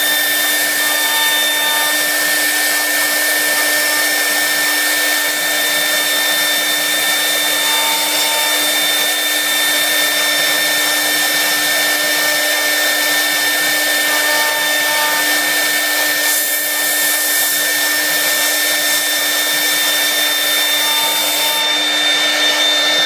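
CNC router spindle running steadily while it carves a 3D relief into a wooden panel: a constant whine with an even hiss of cutting.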